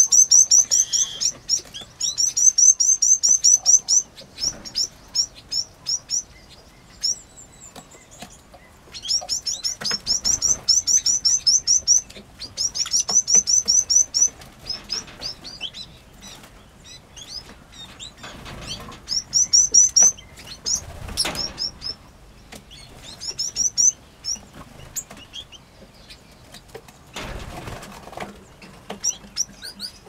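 Small aviary finches and canaries chirping in rapid runs of high, repeated notes that come in bursts of a second or two, with occasional wing flutters.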